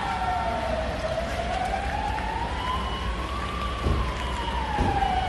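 Emergency vehicle siren wailing slowly: its pitch falls, rises over a couple of seconds, then falls again, over a steady low rumble of street noise.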